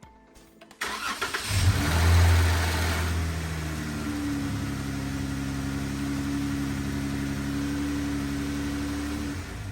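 2015 Jeep Wrangler's 3.6 L Pentastar V6 started after an oil change: the starter cranks briefly, the engine catches and flares up to a high idle, then settles to a steady idle. The idle drops away near the end.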